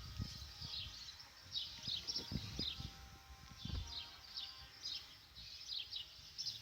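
Small birds chirping in quick repeated clusters, over soft, irregular low huffs of breath from a sleeping, dreaming Akita Inu.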